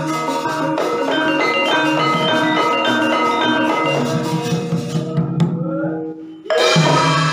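Javanese gamelan accompanying a wayang kulit shadow-puppet play: bronze metallophones ringing steady notes over a regular hand-drum beat. About six seconds in the music breaks off briefly, then comes back louder.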